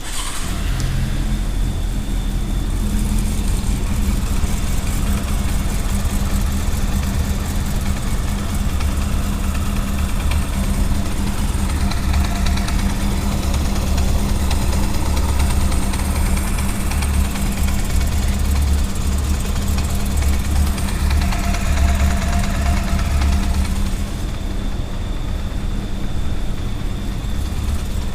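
A 2000 Honda CB400SF's inline-four engine starts and then idles steadily with a rattle, which the owner says occurs at cold start-up and goes away after about a minute.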